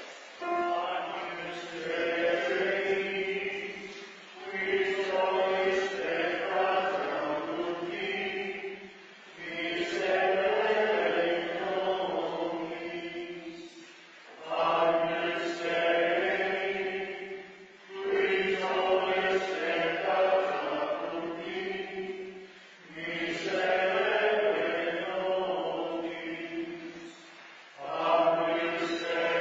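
A church choir singing a slow, chant-like liturgical song in short phrases of a few seconds each, with brief pauses for breath between them.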